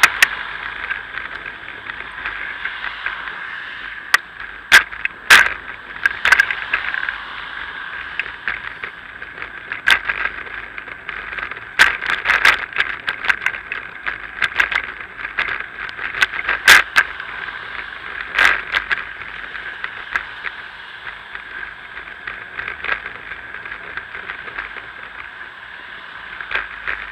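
Bicycle riding along a paved path: a steady hiss of wind and rolling tyres, broken by frequent sharp rattles and knocks as the bike jolts over bumps, loudest about five seconds in and again around seventeen seconds.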